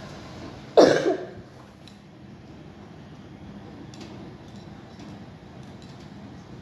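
Commercial front-loading washing machine running with a steady low hum as the drum tumbles the laundry, with one loud sudden knock about a second in that dies away within half a second.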